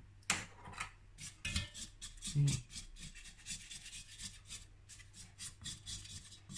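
Silicone spatula scraping around the sides of a stainless-steel mixing bowl and along the wire whisk in quick, repeated strokes, clearing off batter and stuck flour.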